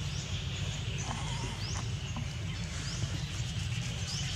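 Outdoor background with a steady low rumble and a faint even hiss. Short, high, rising chirps come every second or so.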